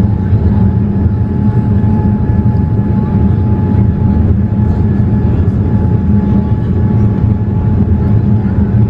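Steady cabin noise inside a Boeing 787-8 Dreamliner descending on approach: a loud, even low rumble of engines and airflow, with a faint steady tone above it.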